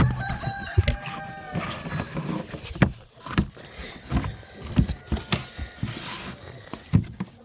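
Feed being dug and scooped by hand from a container: irregular knocks and rattles, with a brief high squeak-like tone in the first second and a half.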